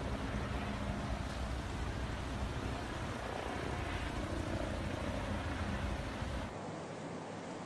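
Water gushing from a burst water main across a flooded street, a steady rushing with a deep rumble. It drops in level and dulls about six and a half seconds in.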